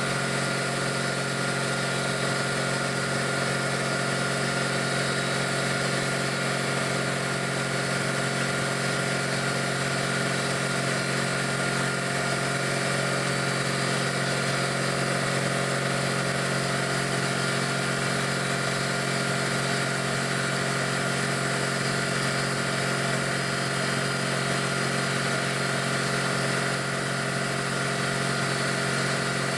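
Quincy QT-54 two-stage air compressor, cast-iron V-twin pump belt-driven by a 5 hp electric motor, running steadily. An even mechanical drone that holds the same pace and level throughout.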